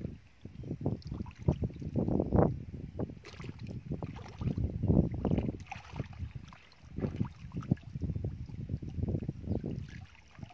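Irregular splashing and sloshing of shallow muddy water as hands scoop and dig through wet mud, with wading steps in the water.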